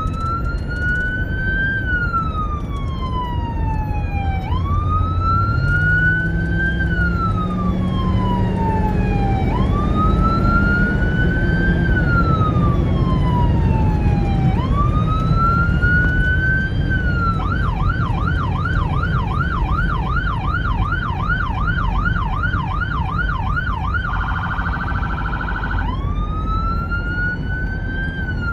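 American police car electronic siren on wail, rising and then falling about every four and a half seconds. About 17 seconds in it switches to a fast yelp of about two and a half cycles a second, then a couple of seconds of very fast warble, then back to the wail. Under it runs steady car engine and road noise, the engine rising in pitch around six to ten seconds in.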